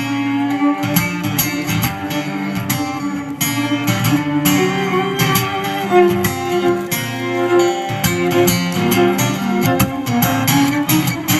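A live band's instrumental break: guitar strumming and picking, with a bowed string such as a fiddle playing held notes.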